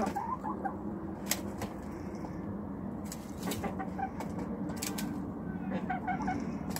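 Hens pecking at a sprig of curly kale held out by hand: scattered sharp pecking clicks, with short, soft clucks mixed in.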